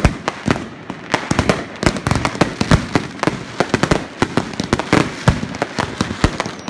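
Fireworks and firecrackers going off: a dense, irregular string of sharp bangs and pops, several a second.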